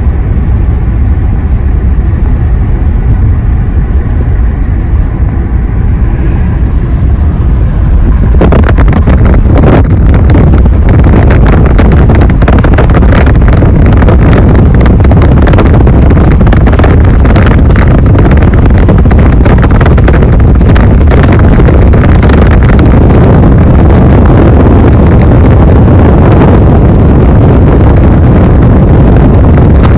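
Car driving at highway speed, with a steady low road and engine rumble heard from inside the cabin. About eight seconds in, loud wind rush and buffeting on the microphone take over and continue.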